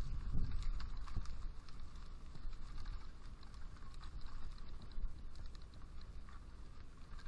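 Mountain bike rattling and clicking over a rough dirt trail, heard from a helmet camera, with the low rumble of tyres and air over the microphone; the rattling is busiest in the first second or so and eases a little after.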